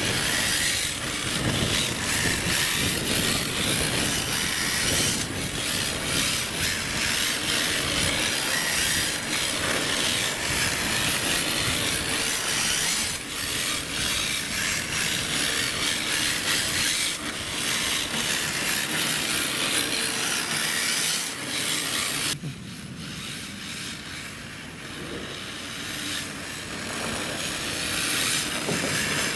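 Electric RC drift car on a D-Like RE-R Hybrid chassis sliding on asphalt: its hard drift tyres scrape and hiss over the rough surface along with the whirr of the drivetrain. The sound drops quieter and duller about two-thirds of the way through, then picks up again near the end.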